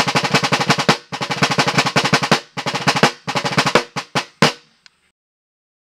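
Rope-tension military field drum played with wooden sticks: three runs of fast rolled strokes, then a few single strokes, stopping about four and a half seconds in, followed by silence.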